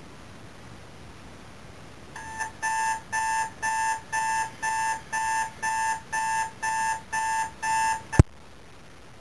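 Electronic alarm clock beeping, starting about two seconds in: a steady high beep repeating about twice a second, a dozen times, then stopping with a sharp click.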